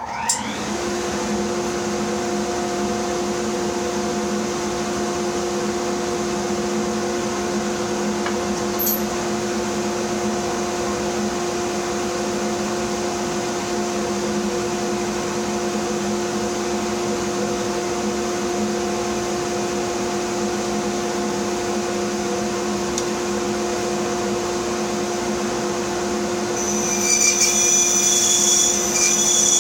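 Bandsaw motor spinning up and then running steadily with an even hum. Near the end a louder, higher hiss joins it as the blade starts cutting through a wooden block.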